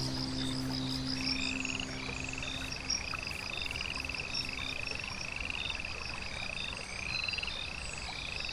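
Frogs calling in a chorus: short rising calls repeat steadily at about two a second, with shorter high peeps repeating above them. A held low music chord fades out in the first couple of seconds.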